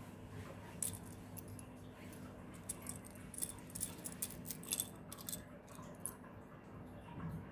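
Small plastic LEGO bricks clicking and clattering against one another as a hand rummages through a loose pile, with a quick flurry of light clicks between about two and a half and five seconds in. A faint steady hum lies underneath.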